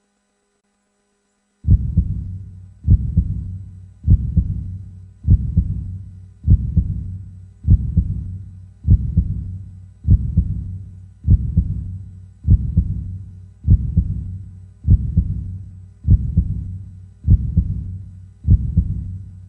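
Heartbeat sound effect: a slow, steady heartbeat of low thuds, one about every 1.2 seconds, starting after nearly two seconds of silence.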